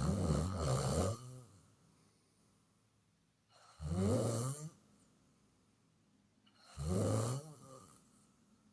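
Loud snoring: three snores about three seconds apart, each lasting about a second, with quiet breathing between them.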